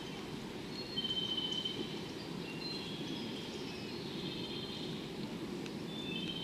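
Steady low rumble of a JR West 113 series electric train running away into the distance. Short, high, steady-pitched squealing tones come and go over it, several at once, loudest about a second in.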